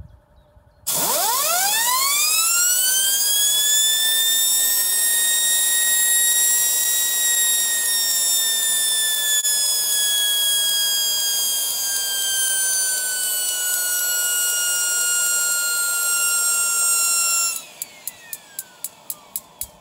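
DIY turbocharger-based gas turbine jet engine spinning up on a start attempt that fails to light. A high whine starts suddenly and rises steeply in pitch over about three seconds, holds and sags slowly, then cuts off near the end and winds down, followed by a quick run of sharp clicks.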